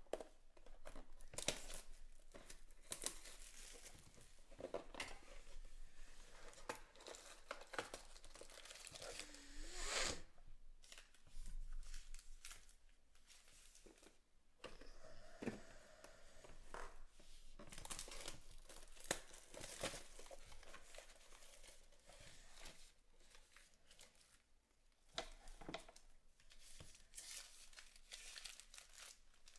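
Trading-card pack wrappers being torn open and crinkled, with card boxes handled, making an uneven run of rips and rustles.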